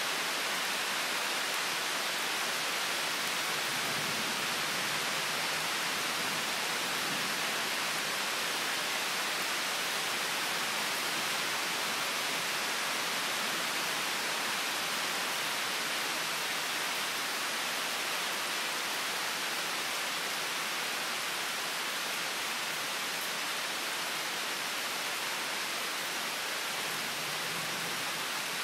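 Steady rain falling, an even hiss that neither builds nor fades.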